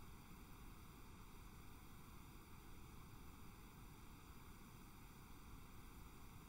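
Near silence: a faint, steady hiss of recording noise, with no other sound.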